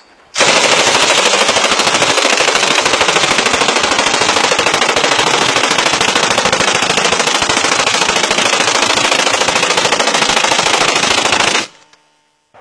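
M249 SAW light machine gun firing .223 rounds on full auto in one unbroken burst of about eleven seconds, starting about half a second in and cutting off suddenly near the end.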